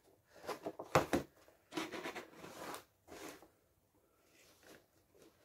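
Cardboard box and plastic packaging of a Funko Pop being handled and opened: a series of short rustles and scrapes, the sharpest about a second in.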